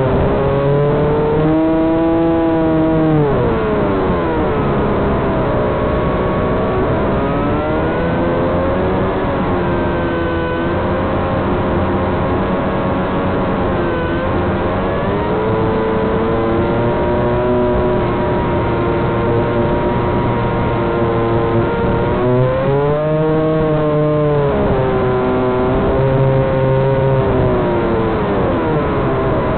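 The electric motors and propellers of a Walkera Hifa drone, picked up by its onboard camera: several whining tones rising and falling together as the throttle changes, with the biggest swings a couple of seconds in and again late on, over a steady rush of wind on the microphone.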